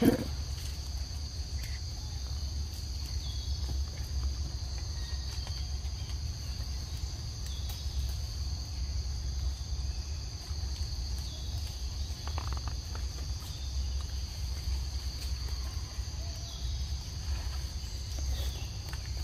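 Steady chorus of forest insects: a continuous high-pitched drone in two close bands, over a low steady rumble, with a few faint clicks.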